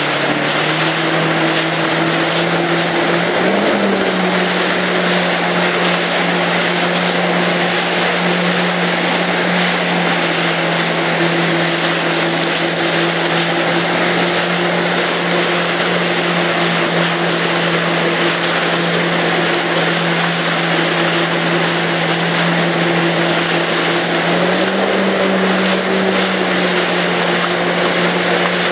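Jet ski engine running steadily at speed over choppy sea, with water rushing and wind noise. Its pitch rises briefly about three seconds in and steps up again near the end.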